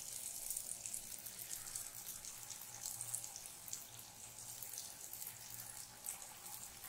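Jalebi batter frying in hot oil in a shallow pan: a steady sizzle dense with fine crackles as the spirals bubble.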